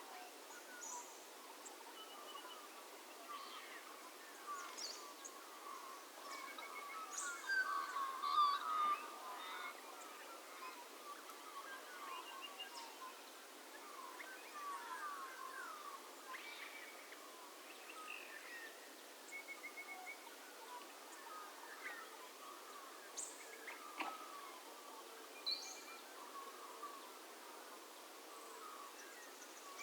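Australian magpies carolling in a dense warbling chorus that swells to its loudest about eight seconds in, with other birds' short chirps and whistles scattered over it.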